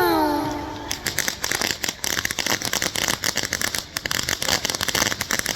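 A firework crackling: a dense run of rapid, irregular sharp pops that starts about a second in and keeps going.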